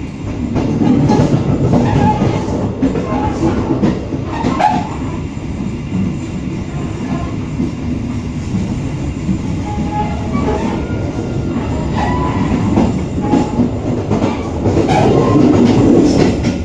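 Passenger train running along the track, heard from inside the coach: a continuous rumble and rattle of wheels on rail, louder about a second in and again near the end.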